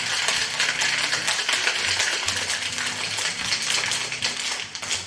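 Ice cubes rattling hard inside a metal cocktail shaker shaken by hand, a fast continuous clatter that dies away near the end as the shaking stops.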